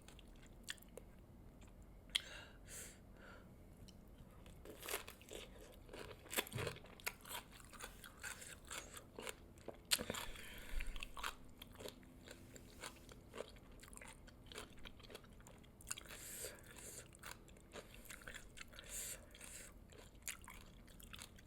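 Close-up eating of crispy fried chicken drumsticks: biting and chewing, with irregular crunches of the fried coating.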